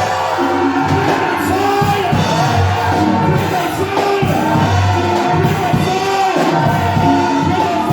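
Worship music played loudly in a church hall, with a congregation's many voices singing and calling out together over sustained instrument chords.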